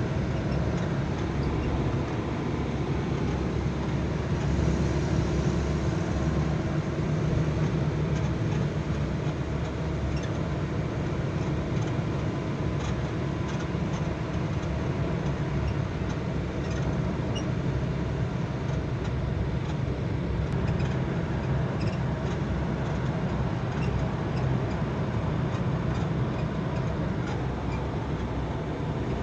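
Steady road and engine noise inside the cabin of a car driving at speed: an even low rumble of tyres and engine, with no sharp events.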